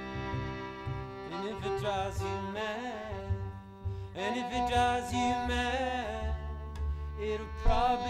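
Live acoustic music: a bowed violin and a double bass playing together, with a man's voice singing over them.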